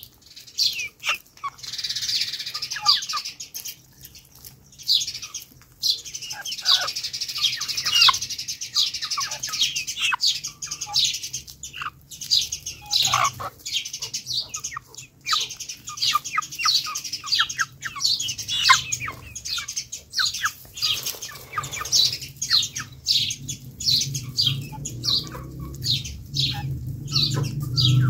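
Birds chirping rapidly and without pause, high-pitched and dense, with a few lower calls mixed in. A low hum grows louder near the end.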